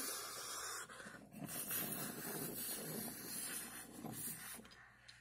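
A wooden toy engine pushed by hand along wooden railway track: a steady rolling, scraping noise that fades out near the end.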